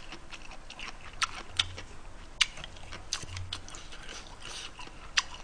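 Close-miked chewing of a mouthful of noodles: scattered short, wet mouth clicks and smacks, several a second at times, over quiet room tone.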